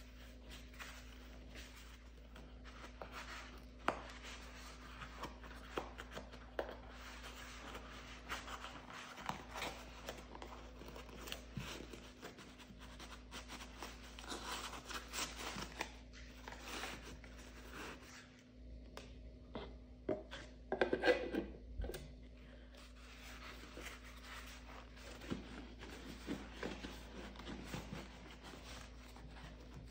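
Cardboard core of a toilet paper roll being crushed, twisted and torn out by hand: irregular paper and cardboard rustling, scraping and crinkling with scattered small clicks, busiest and loudest about two-thirds of the way through. A steady low hum runs underneath.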